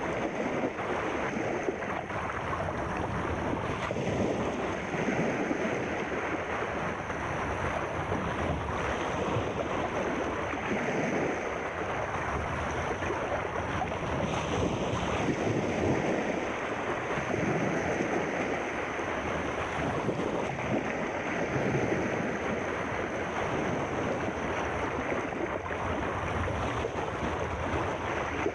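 Sea surf washing continuously, swelling and easing every few seconds, with a faint steady high hiss above it.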